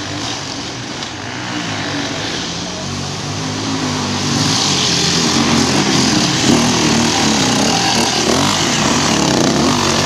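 Enduro motorcycle engines revving up and down as riders power up a loose dirt track, getting louder from about four seconds in as a bike passes close by.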